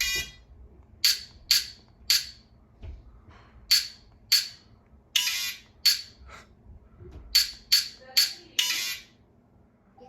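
TCL 6-Series Roku TV speakers putting out about a dozen short, loud, harsh bursts of distorted sound at irregular spacing, with little in between: the TV's audio fault, where the sound turns loud and distorted.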